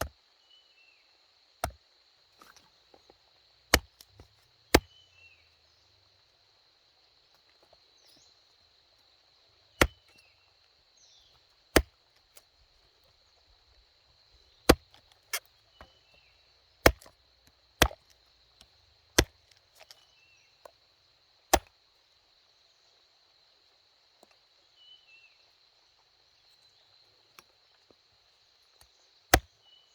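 Sharp chopping strikes, about a dozen at uneven intervals, over a steady high insect drone and a few short bird chirps.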